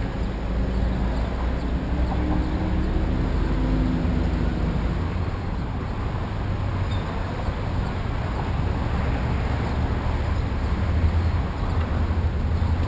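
Street traffic at a city intersection: cars and SUVs driving across, a steady rumble of engines and tyres. One vehicle's engine hum stands out over the first five seconds or so.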